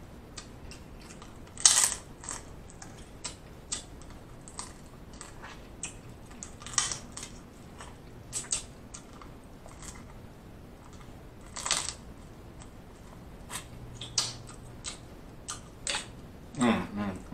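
Close-up eating sounds of king crab meat being chewed: a run of short wet mouth clicks and lip smacks, a few of them louder, spread irregularly through the stretch.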